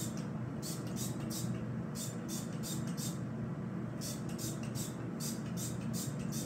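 Hairbrush strokes through long hair: quick scratchy swishes of the bristles, about two to three a second, pausing briefly about halfway through.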